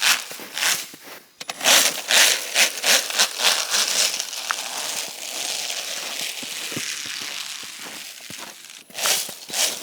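Footsteps crunching in snow: a quick run of crunches, a pause with a steady hiss in the middle, then crunching again near the end.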